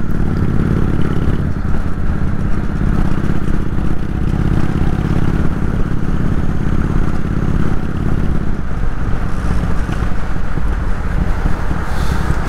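Kawasaki VN 800 motorcycle's V-twin engine running steadily under way, the engine note shifting a little about two-thirds of the way through.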